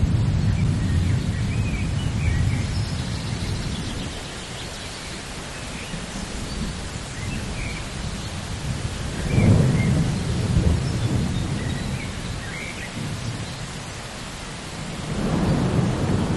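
Thunderstorm: steady rain with rolling thunder. A low rumble fades away early, another swells about nine seconds in and dies off, and a third builds near the end.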